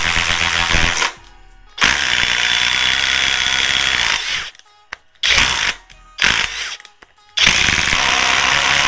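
Cordless impact driver hammering as it drives fasteners, in several runs: one that stops about a second in, a longer run of about two and a half seconds, two short bursts, then a long steady run to the end.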